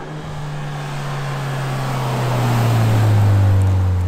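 Ford Bronco's 2.3L EcoBoost turbocharged four-cylinder through a Fast Intentions axle-back exhaust, decelerating as it drives past: a low exhaust drone that falls slowly in pitch, grows louder to a peak about three seconds in as the truck passes, then starts to fade.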